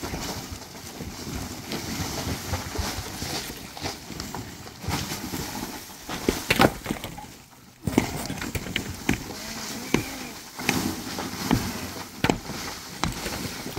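Demolition of a packed-earth roof: irregular pickaxe blows and scraping, with earth and rubble crumbling and falling, and a wooden pole knocking as it is levered against the roof.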